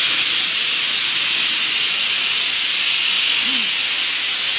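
Loud, steady hiss that stays even throughout, strongest in the high range.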